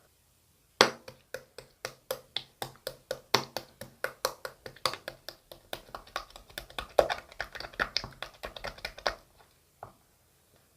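Chewy slime marbled with shaving foam being pressed and squished by hand, each press giving a sharp click or pop, about five a second. The clicking starts about a second in and stops shortly before the end, with one last click after it.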